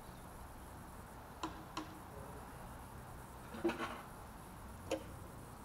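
A few faint, sharp clicks or taps over a quiet background hiss: two about a second and a half in, a short cluster near the middle, and one more near the end.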